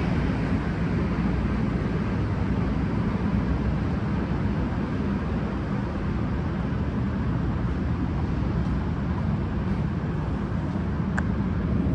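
Steady low rumble of the Amtrak Cardinal standing at the station platform with its equipment running, with a faint click about 11 seconds in.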